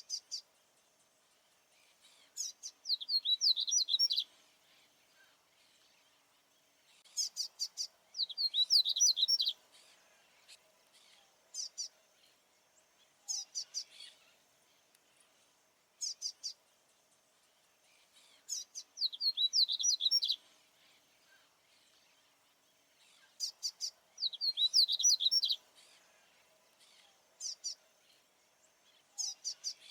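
Male papa-capim baianinho seedeater singing: a short, fast twittering song of quick high notes, repeated about every five seconds, with single sharp chip notes in between.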